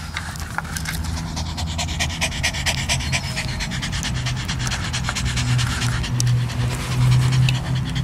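Small Maltese–Yorkshire terrier mix dog panting fast and steadily with its tongue out, out of breath from running and jumping after a ball.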